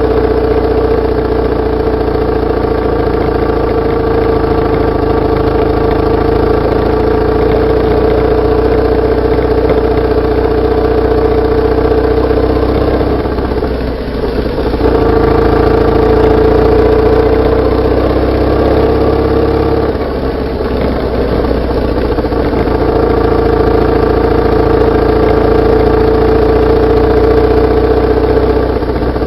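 BMW R850R's boxer-twin engine running steadily as the motorcycle is ridden, heard mostly as exhaust note from just above the exhaust. The note dips briefly twice, about halfway through and again some seconds later, then steadies again.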